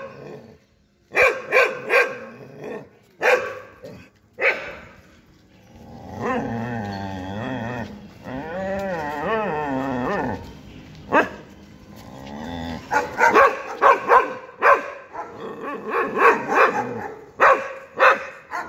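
Dogs barking: a few bursts of barks in the first five seconds, a long drawn-out call with a wavering pitch from about six to ten seconds in, then fast, repeated barking, two or three barks a second, through the rest.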